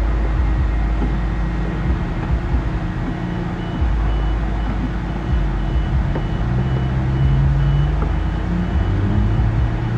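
A steady motor running, with a short high beep that starts repeating about three times a second from about three seconds in.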